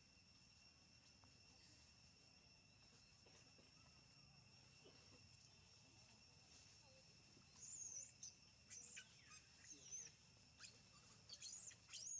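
Faint steady drone of insects in two high tones. From about halfway, a run of short, very high-pitched squeaks in quick bursts from a young macaque.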